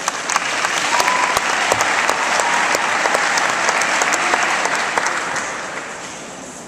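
Arena audience applauding, a dense patter of clapping with sharp individual claps that starts suddenly and fades away after about five seconds.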